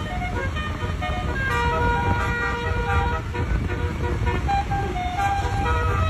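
Telolet multi-tone bus horn of the Basuri type playing a tune of short toots with one longer held note, over a steady low rumble.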